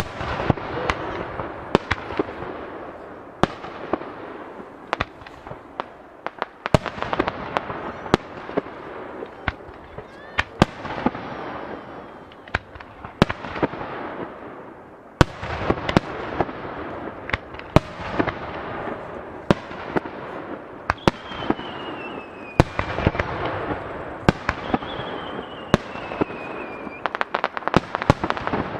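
Aerial firework shells bursting one after another, sharp bangs every second or so, each trailing off in a rolling echo with crackle between them. Two high falling whistles sound in the second half, and the bangs come in a quick run near the end.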